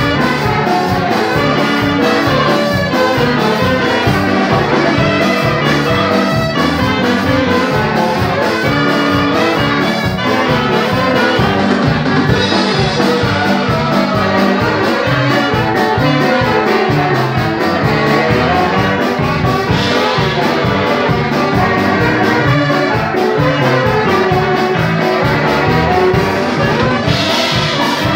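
Brass band music, trumpets and trombones playing a dance tune over a steady beat.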